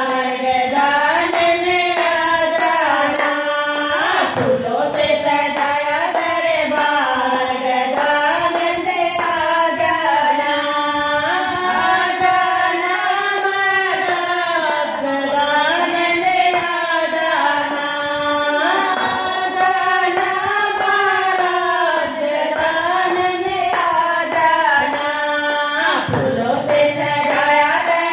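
Women's voices singing a Hindi devotional bhajan together in a steady, repeating melody, with hand claps keeping time underneath.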